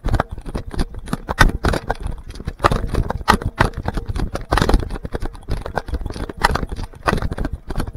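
Running footsteps pounding and scuffing over leaf litter and forest floor, a fast irregular run of thuds, with the jolting of a body-worn camera.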